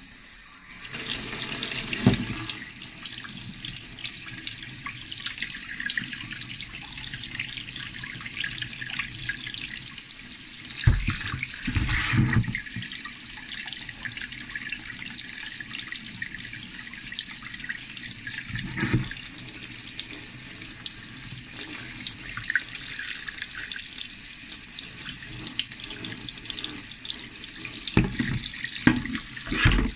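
Kitchen tap running steadily into a stainless steel sink as a rusty axe head is rinsed under the stream to wash off vinegar, with a few brief knocks and thumps as the head is handled.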